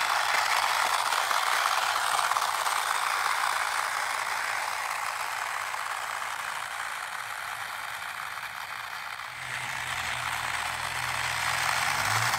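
3D-printed Stomper 4x4 toy truck's small electric motor and plastic gear train whirring steadily as it drives itself over gravel. A low steady hum comes in about three-quarters of the way through.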